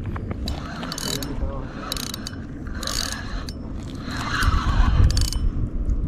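Penn spinning reel being cranked to reel in a hooked fish, its gears whirring and clicking in uneven short bursts.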